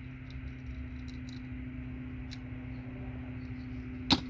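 Small faint clicks of plastic and metal parts being handled as RJ45 connectors are picked apart for their gold-plated pins, with one sharp, loud click near the end, over a steady low hum.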